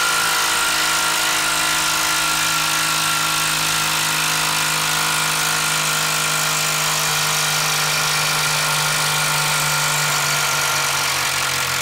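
Hilti SID 2-A 12-volt impact driver hammering steadily without a break as it backs a long screw out of pressure-treated wood.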